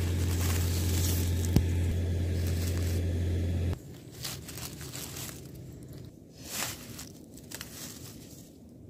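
A steady low hum that cuts off suddenly just under four seconds in, then soft rustling and crinkling of dry leaves and grass as chanterelle mushrooms are picked by hand from the forest floor.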